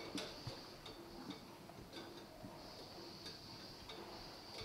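Quiet background hiss with faint small clicks and ticks at irregular intervals.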